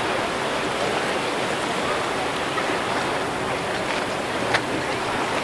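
Steady rush of choppy waves and surf, with one short sharp click about four and a half seconds in.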